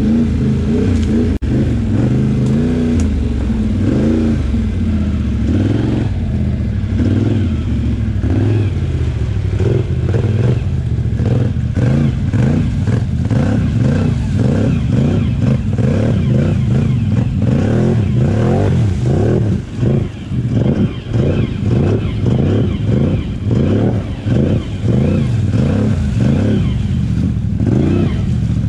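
Can-Am Outlander XMR 850 ATV's V-twin engine running under load, revving up and down. In the second half the throttle swings quickly and repeatedly, with short drops in loudness.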